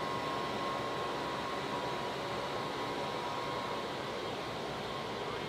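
Steady mechanical rush of noise with a faint high tone running through it, even in level throughout.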